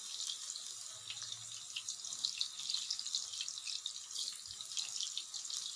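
Spinach pakoras in gram-flour batter deep-frying in hot oil: a steady sizzle thick with fine, rapid crackles.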